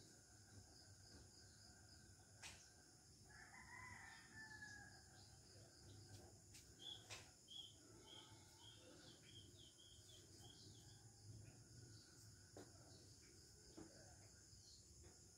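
Faint rural background: a rooster crowing once, about three seconds in, over a steady high insect buzz, with a run of short high bird chirps in the middle.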